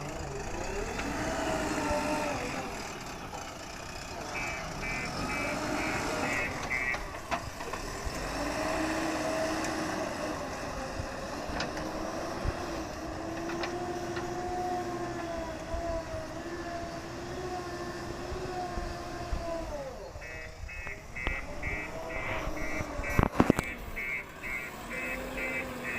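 Diesel engine of a JCB 3DX backhoe loader revving up and down as it works, loading a tipper truck. A reversing alarm beeps in quick runs at the start, about five seconds in and again from about twenty seconds. A few loud knocks come near the end.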